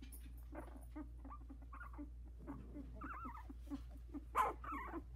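Two-week-old Havanese puppies whimpering and squeaking in short, wavering cries, with one louder cry about four seconds in.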